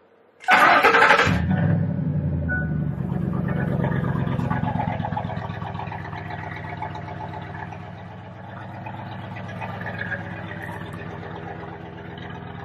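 Ford 5.4 Triton V8 starting: a brief burst of cranking as it catches about half a second in, then a steady idle. This is the first start after a fresh oil change.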